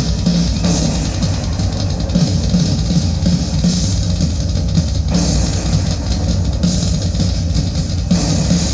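Drum-driven rock music with a heavy bass line played through a DIY Dayton Audio 2x50 W Bluetooth speaker kit in a solid-wood fourth-order bandpass box, picked up by a tablet's microphone in the room.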